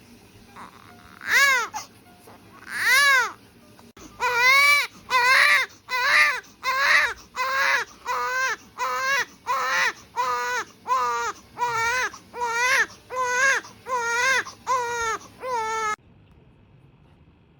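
One-month-old baby crying, a series of short wails that rise and fall in pitch. After two spaced cries, the crying speeds up into a steady run of about one and a half cries a second, then stops abruptly near the end.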